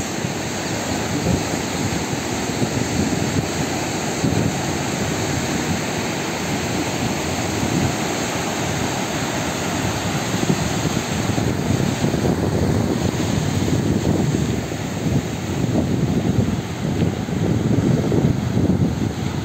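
Sea surf breaking and washing on the shore: a steady, heavy rushing, with wind rumbling on the microphone and swelling a little louder near the end.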